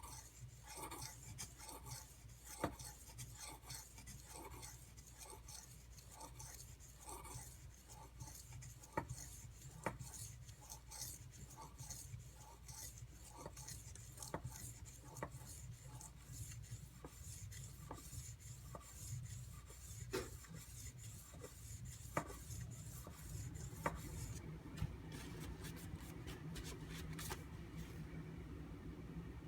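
Knife blade rubbed back and forth on a whetstone, in a steady rhythm of about two strokes a second, with a few sharp clicks along the way. The strokes stop about 24 seconds in.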